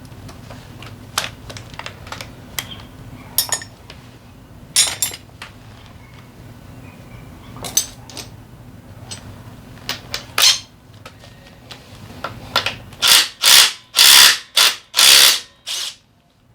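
Hand tools working on a Honda PCX 125 scooter engine during disassembly: scattered metal clicks and knocks, then five short, loud hissing blasts in quick succession near the end.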